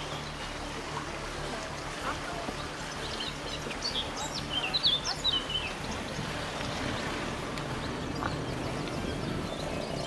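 A small bird chirping, a quick run of short high chirps about four to five seconds in, over a steady outdoor rushing noise.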